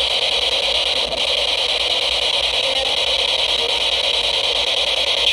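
SB-7 spirit box sweeping through radio stations, giving steady loud static hiss with choppy fragments. Near the end comes a brief voice-like fragment that the investigators hear as the name "Chuck" and take for a possible spirit reply.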